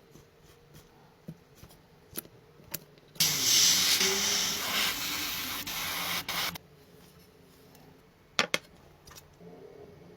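A spray hissing steadily for about three seconds, with brief breaks near the end. Light clicks and taps come before it, and two sharp knocks follow a couple of seconds later.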